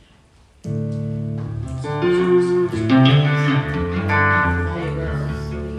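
Electric guitar played solo, ringing chords and single notes that start about two-thirds of a second in and change every second or so.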